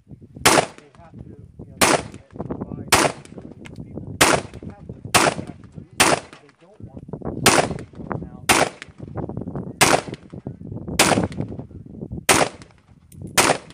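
AR-15 rifle fired in single shots at a steady pace, about a dozen shots roughly a second apart.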